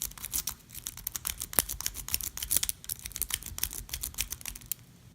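Snake rake being jiggled in the keyway of a vintage Best padlock: rapid, irregular light metallic clicking as the pin tumblers spring up and down.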